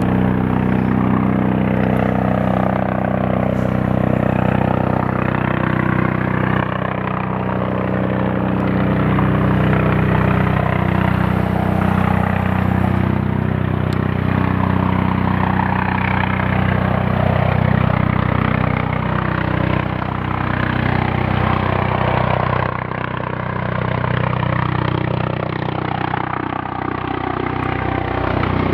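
Twin-turbine Eurocopter EC155 helicopter on its landing approach: steady rotor and turbine noise that eases slightly near the end as it comes down.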